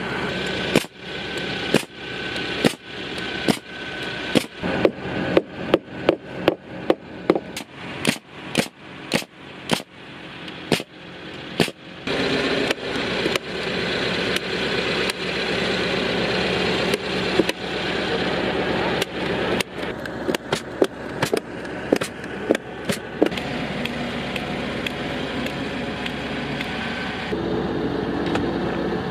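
Hammer blows on timber, a steady run of sharp strikes about two a second, thinning out about halfway through. Under the later strikes and after them, the crane truck's engine runs steadily.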